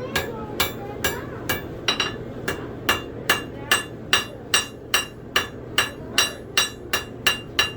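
Blacksmith's hammer striking a steel knife blade on an anvil at a steady pace, about two and a half blows a second, each with a bright metallic ring, forging the back of the blade.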